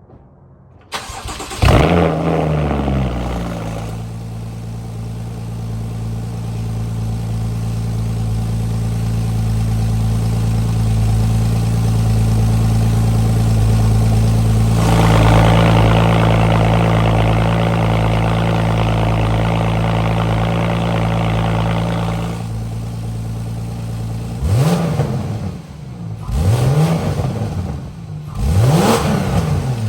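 Cold start of a 2013 Porsche Boxster S (981) flat-six through an Armytrix valvetronic aftermarket exhaust. The starter cranks briefly, the engine catches with a sharp flare of revs, then settles into a steady fast idle that grows fuller and raspier for several seconds mid-way. Near the end it is blipped three times, each rev rising and falling quickly.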